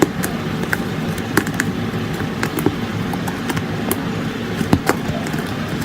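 Sticky white fluffy slime being handled, giving irregular small clicks and pops over a steady background hiss.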